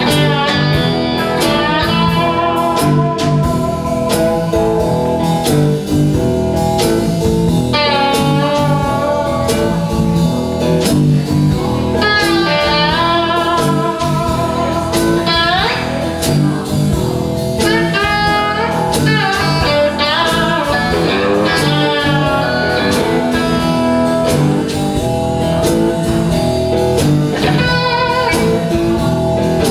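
Live blues band with amplified cigar box guitar taking the lead, playing bent and sliding notes over a steady drum beat and a second box guitar.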